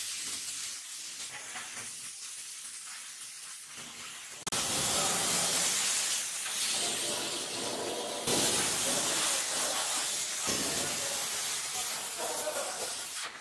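A sponge rubbing on the ceramic body of a toilet, then, after a sudden change about four and a half seconds in, a compressed-air hose nozzle giving a loud, steady hiss as it blows dust off the ceramic toilet.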